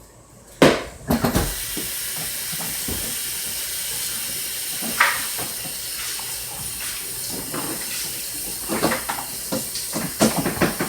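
Kitchen tap running in a steady hiss while a mixing bowl is rinsed out, with a knock as the water starts and bowl-against-sink clatters near the end.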